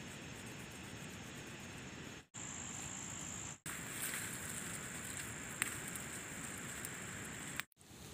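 Insects keeping up a steady, high-pitched drone over faint outdoor hiss, broken by short silent gaps where the clips change, with one sharp click past the middle.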